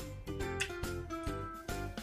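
Background music: an instrumental track with plucked, guitar-like notes and a steady beat.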